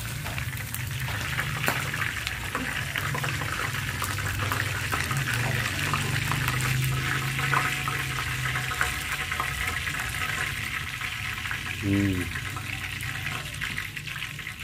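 Pork belly slabs sizzling in hot oil in a frying pan, a steady crackling hiss, as they are lifted out with tongs. About twelve seconds in, a brief pitched sound cuts across the sizzle.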